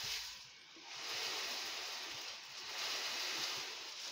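Steady hiss from a covered pot of cinnamon water heating on the stove, dipping briefly about half a second in.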